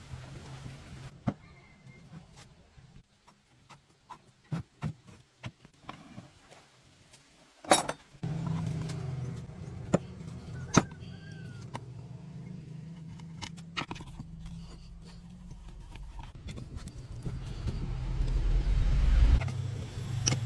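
Scattered clicks and knocks from handling metal parts. About eight seconds in a motor starts suddenly and runs steadily, getting louder and deeper near the end.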